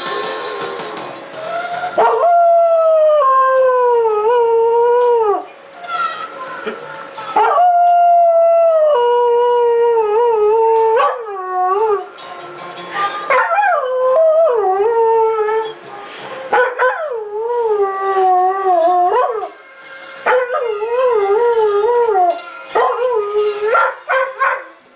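Mixed-breed dog howling along to music from a speaker: two long howls that slide down in pitch, then a run of shorter, wavering howls, with a few short yips near the end.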